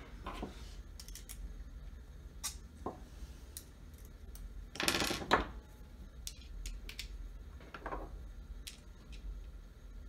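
Small metal clicks and taps from a hand screwdriver and its metal bit being handled and fitted together on a wooden table. A brief louder rattle comes about five seconds in.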